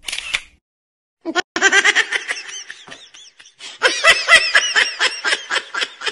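Animated characters laughing in two bouts of quick, rapid 'ha-ha' pulses, with a short pause between them.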